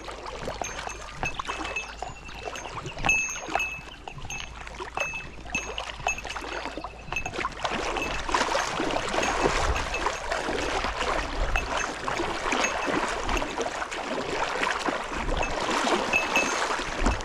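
Wading through a shallow river: water sloshing and splashing around the legs over the steady rush of the stream, getting louder about halfway through. A short high chirp repeats about twice a second in the first half.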